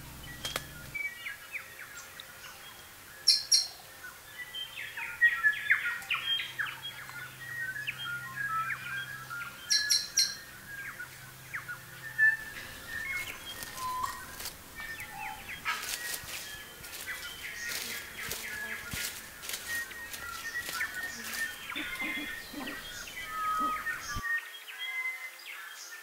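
Chorus of native forest birds chirping and calling, many short whistles and twitters overlapping, with a run of sharp clicks and rustles past the middle.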